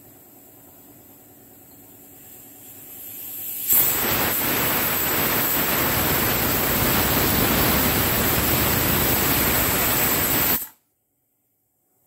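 Aluminium Pigeon pressure cooker whistling: a hiss builds over a couple of seconds, then the whistle weight lifts and a loud, steady jet of steam blasts out for about seven seconds before cutting off suddenly. It is the sign that the cooker has come up to full pressure.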